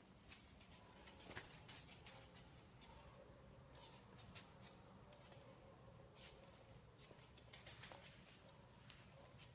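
Faint, irregular ticks and light patter of small animals' claws on a laminate floor, a Yorkie puppy and ferrets moving about.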